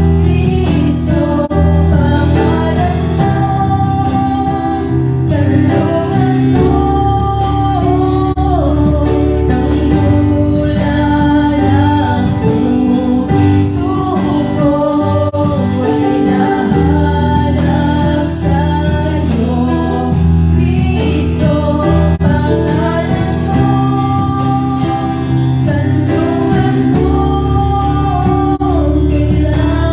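Christian worship song: sung melody over instrumental backing with a steady beat.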